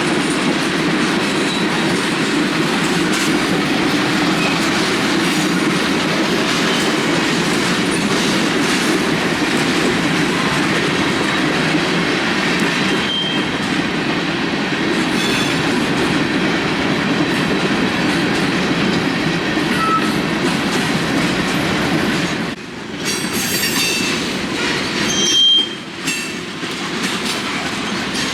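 CPKC freight train's cars rolling past, a steady rumble with the wheels clacking on the track. Brief high wheel squeals come a few times; one about three-quarters of the way through is the loudest moment.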